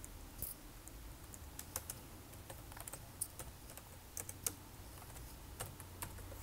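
Irregular, faint keystrokes on a computer keyboard as a short line of code is typed.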